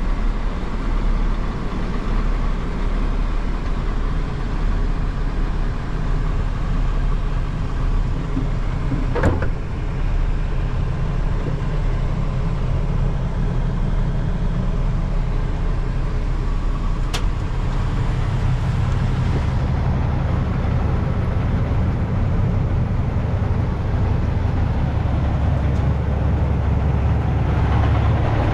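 The 2004 Mack CL733 truck's diesel engine idling steadily, heard from inside the cab. Two short sharp clicks about 9 and 17 seconds in, and the engine sound grows fuller near the end as the cab door opens.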